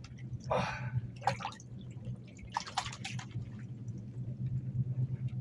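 Water splashing and dripping in a few short bursts as a small bream is pulled up out of the ice-fishing hole, over a steady low hum.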